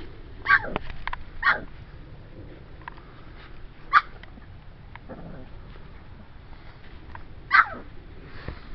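Puppies yipping: four short, high yelps spread over several seconds, each falling in pitch.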